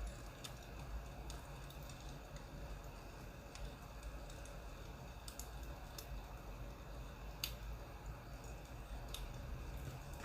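Crackling wood fire: irregular sharp pops and snaps, a few louder ones in the second half, over a steady low rumble.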